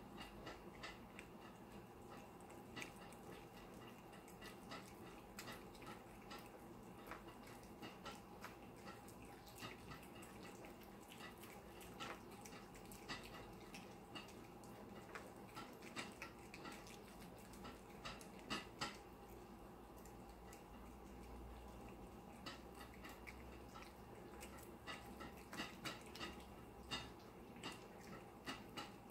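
Three cats eating from ceramic bowls: faint, irregular small clicks of chewing and licking, some louder clicks about two-thirds of the way in and near the end, over a steady faint hum.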